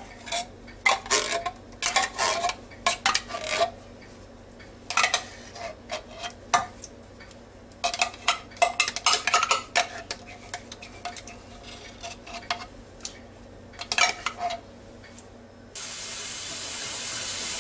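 Metal spoon scraping and knocking inside a tin can and against the Ninja Foodi's inner pot as thick condensed cream of mushroom soup is spooned out: irregular clusters of clicks and scrapes, some with a short metallic ring. A steady hiss comes in suddenly near the end.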